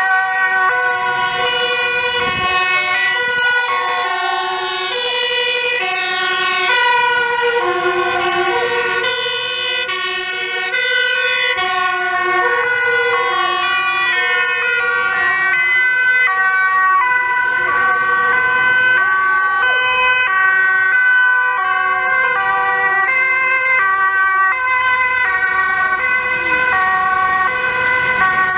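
Several two-tone sirens of passing ambulances, fire brigade and police vehicles sounding at once, their alternating high and low notes overlapping out of step.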